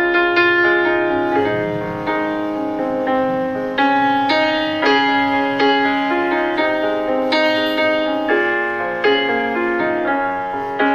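Instrumental background music: a keyboard plays a melody of struck, piano-like notes that ring and decay.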